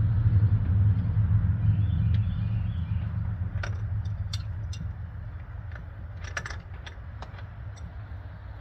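A low vehicle rumble slowly fades away, with scattered light metallic clicks and clinks from about the middle on, from a wrench working a fuel line fitting.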